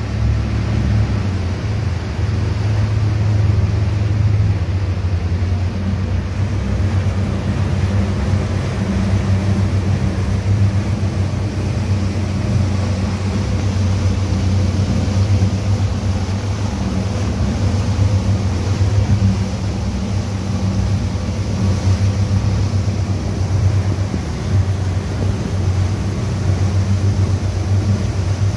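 A boat's engine running with a steady low drone, under a constant rush of wind and water.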